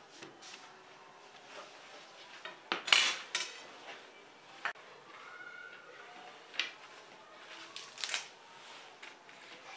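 A ceramic dinner plate clinking and knocking as it is handled while pieces of food are arranged on it by hand. There are a few scattered sharp clicks, the loudest cluster about three seconds in.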